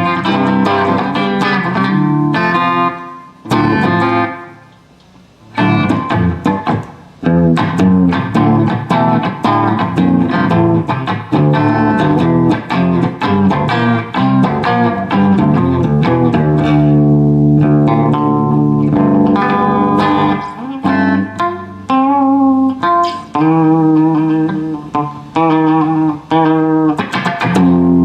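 Guitar being played: quick picked notes and chords, with a couple of short stops a few seconds in.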